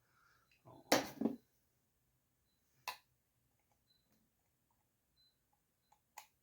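Chainsaw teardown work with hand tools and small metal parts: a quick cluster of knocks about a second in, then single sharp clicks near three seconds and near the end, with faint ticks between.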